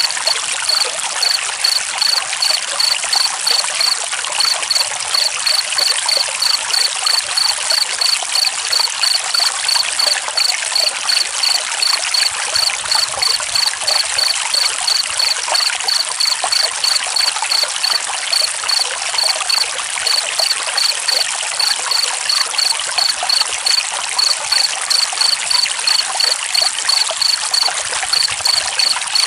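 Water flowing steadily like a stream, with a cricket chirping in an even rhythm, a few chirps a second, pausing briefly now and then.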